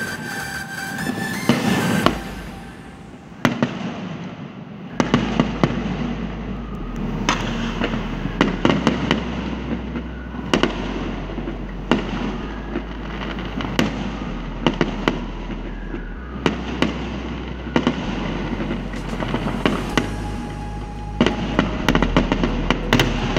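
Aerial fireworks going off: a rapid, irregular string of sharp bangs and crackles. They ease off for a couple of seconds a few seconds in, then carry on, with a dense run of bangs near the end.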